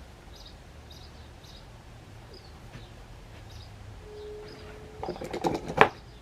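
Faint bird chirps repeating in the background. Near the end comes a quick run of sharp clicks and knocks, the loudest sound.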